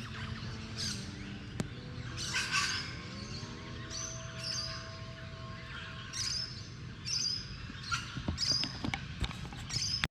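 Wild birds calling in bushland: short, high chirps that come again and again through the second half.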